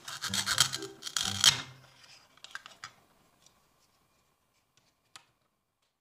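Toy plastic starfruit being cut apart with a toy knife: the hook-and-loop pads holding its halves rip apart in a few raspy scratching strokes over the first two seconds. A few small clicks follow, and one sharp tick about five seconds in.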